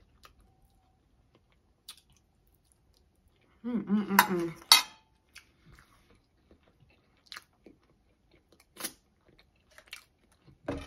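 Close-up mouth sounds of a person chewing food, with soft clicks scattered throughout. About four seconds in there is a short vocal sound and a couple of sharp clinks of a metal fork against a plate.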